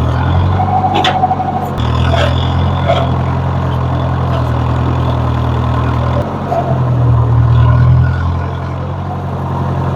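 Engine of a 64-year-old farm tractor running steadily, its note shifting about two seconds in and again about six seconds in, and loudest a little past the middle.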